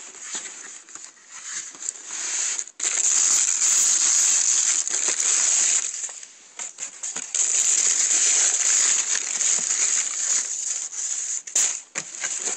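Tissue paper in a shoebox crinkling and rustling as it is handled, in long loud spells broken by short pauses.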